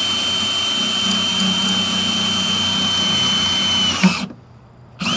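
Cordless drill running at a steady speed as it bores a hole into a metal trailer frame. It stops suddenly about four seconds in, and then a brief second burst of drilling follows near the end.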